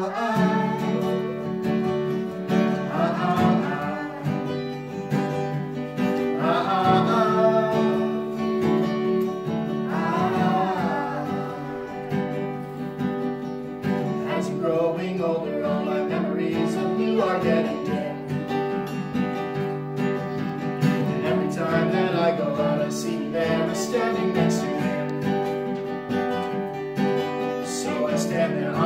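Acoustic guitar strummed steadily, with a man and a woman singing a song together over it.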